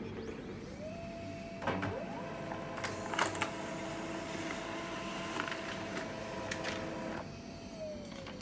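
HP Laser MFP 137fnw laser printer printing a page. Its motors start a steady whine about a second in, more tones join it, and a few sharp clicks come as the sheet is fed through. The whine stops near the end, with one falling tone as it winds down.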